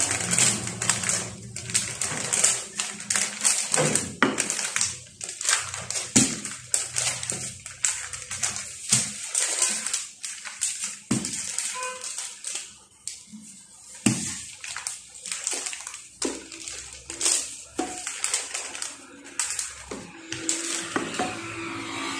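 Parchment paper crinkling and rustling in irregular crackles as a wooden rolling pin is rolled over dough sandwiched between the sheets and hands press and smooth the paper down.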